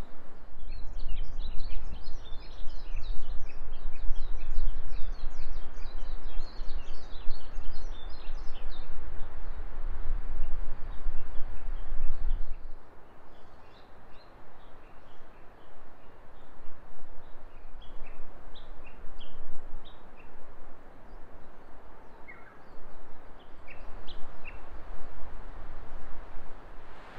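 Forest songbirds chirping busily over a rushing wind with a heavy low rumble. About twelve seconds in, the rumble drops away and only scattered bird calls remain over a softer wind.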